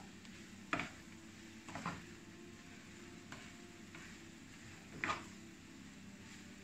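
Spatula scraping and knocking against a frying pan while stirring rice with shrimp: three louder strokes, about a second in, near two seconds and past five seconds, with a fainter one between.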